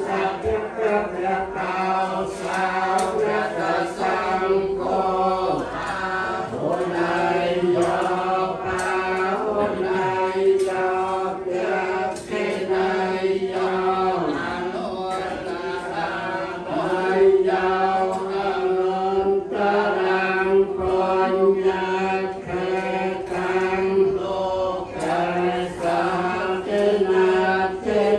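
A group of voices chanting in unison, a Buddhist chant held on a near-steady pitch and moving syllable by syllable.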